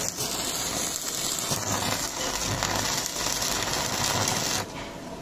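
Stick (MMA) welding arc crackling steadily as a Victor MMA-200 DC inverter welder burns an electrode, then breaking off abruptly about four and a half seconds in.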